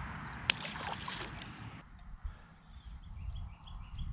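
A small largemouth bass tossed back into the pond hits the water with one sharp splash about half a second in. After a cut, low wind rumble on the microphone, with faint short chirps repeating several times.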